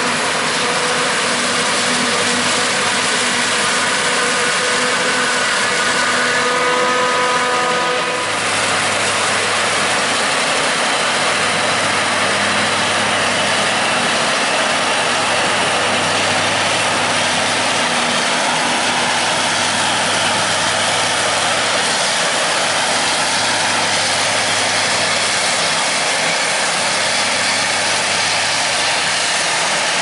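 Claas Jaguar 980 self-propelled forage harvester running steadily under load while chopping corn silage, a continuous heavy machine noise. A whine heard in the first eight seconds drops away, leaving a steadier rushing sound with a low hum.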